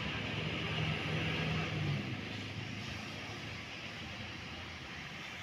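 Bus engine running, its low hum fading away about two seconds in as the bus moves off, over a steady hiss of rain.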